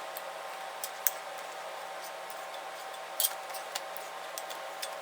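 Scattered light clicks and ticks from handling a honey bottle and a plastic Ziploc bag while honey is added to the marinade, over a steady faint hum.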